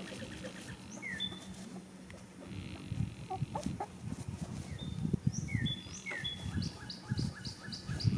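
Small birds calling: short downward-sliding chirps and whistles, then a quick run of repeated high chirps, about four a second, near the end. Under them, irregular low rumbling sounds come in about three seconds in.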